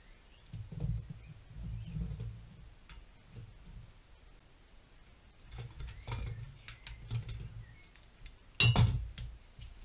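Clinks and low knocks of a steel three-jaw gear puller being handled and set up on a driveshaft's centre support bearing, with one louder sharp knock near the end.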